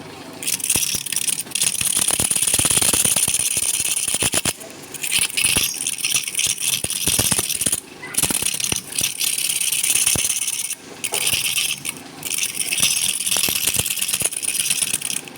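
Woodturning gouge cutting a spinning workpiece on a lathe: a loud, rattling hiss of shavings, with brief breaks several times as the tool lifts off the wood.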